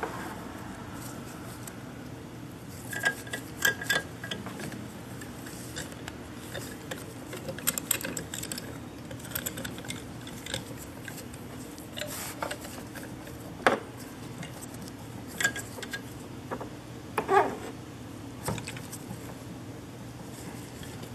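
Hand-turned screw-type caliper piston tool clicking and clinking against a single-piston brake caliper as the piston is forced back into its bore, past a stiff new seal. The metal clicks come irregularly, a few of them ringing briefly.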